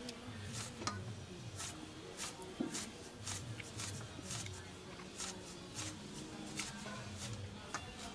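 Quiet hand-eating sounds: fingers squishing and mixing rice and fish curry on a plate, with soft irregular smacks and clicks of chewing, one or two a second.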